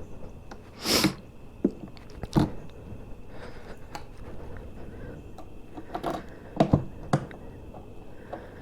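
Hard motorcycle saddlebags being handled and offered up to the bike: a scattering of knocks, clunks and a scrape, the longest one about a second in and a quick cluster of knocks a little past the middle.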